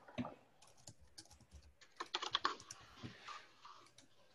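Typing on a computer keyboard: scattered keystrokes, with a quick run of several about two seconds in.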